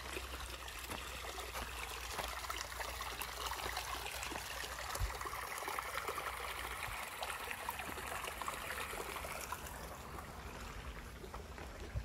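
Small creek running, a steady trickle of flowing water that eases slightly near the end.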